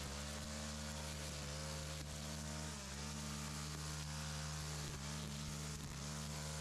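Small petrol engine of lawn equipment running steadily at high speed. Its pitch sags briefly a few times as it takes load, then recovers.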